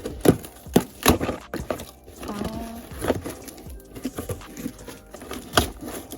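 Small boxes and packaging being handled and opened: an irregular run of sharp clicks and knocks with some crinkling in between.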